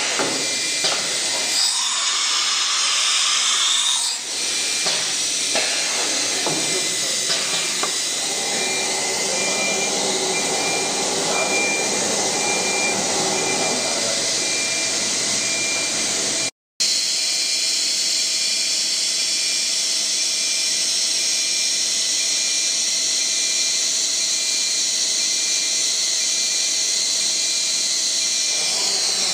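ATC CNC router running: a steady whirring hiss, with a whine that glides up and then down a couple of seconds in. The sound drops out for an instant a little past halfway, then carries on as an even hiss.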